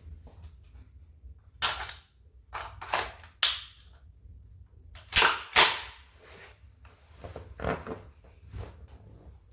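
WE M4A1 V.3 gas blowback airsoft rifle firing single shots, each a sharp crack with the bolt snapping back. About seven irregularly spaced shots, the loudest two in quick succession about five seconds in, with fainter clicks between.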